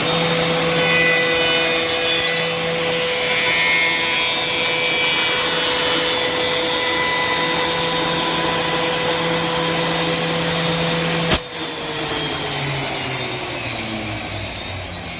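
Single-head CNC tenoning machine running, its cutter spindle whining steadily as it machines a tenon in wood. About 11 seconds in there is a sharp click, and the whine then falls in pitch as the spindle winds down.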